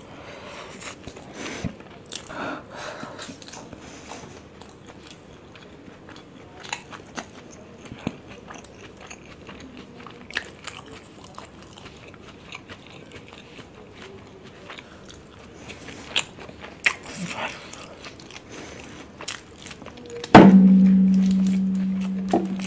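Close-miked chewing and wet mouth sounds of a person eating soft steamed veg momos, with scattered small clicks and smacks. About 20 seconds in, a sudden loud low tone starts and rings on, slowly fading.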